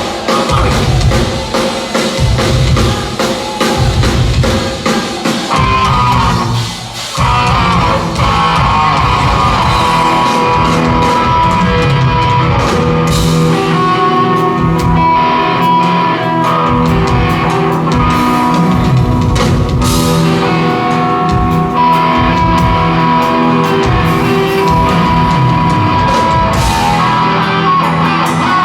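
Live rock band playing loudly: distorted electric guitars over a drum kit, with a brief drop-out about seven seconds in before the full band comes back.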